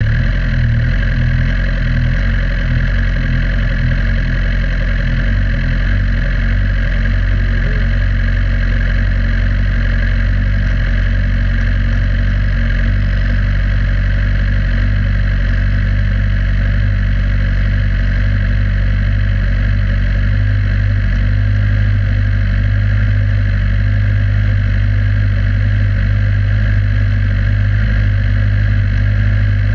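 Tatuus Formula 4 single-seater's Abarth 1.4-litre turbocharged four-cylinder idling steadily at about 1,400–1,500 rpm with the car stationary, picked up by an onboard camera behind the driver's head.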